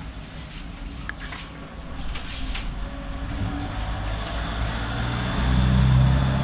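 A motor vehicle's engine running with a steady low hum, getting louder over the last two seconds.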